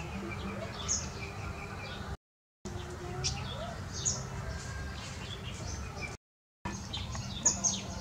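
Songbird calling with short, high chirps repeated every second or so over a steady low rumble. The sound cuts out briefly twice.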